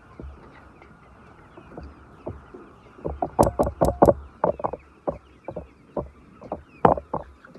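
Chickens clucking in short, repeated calls that grow busier about three seconds in, with a quick run of sharp clicks or taps around the same time.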